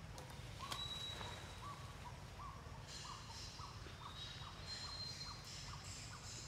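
Forest ambience: a bird calling a series of short repeated notes, about two a second and speeding up, with a high insect buzz joining about halfway.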